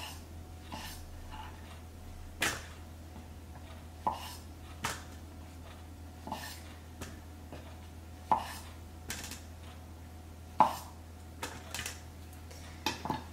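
Santoku knife chopping through button mushrooms onto a wooden cutting board: single sharp knocks, unevenly spaced about a second apart, with a quick pair near the end. A low steady hum runs underneath.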